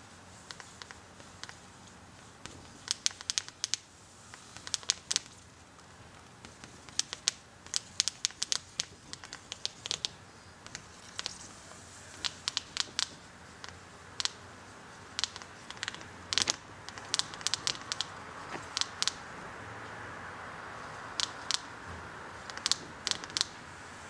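Marker pen writing on a glass pane: quick clusters of short squeaks and taps as each letter is stroked, with brief pauses between words.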